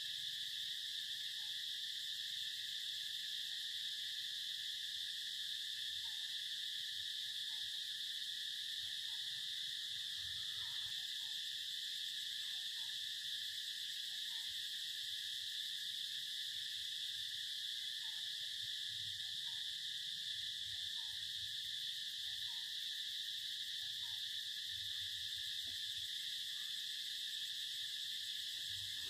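A steady, high-pitched chorus of calling animals, with faint short calls at a lower pitch scattered through it.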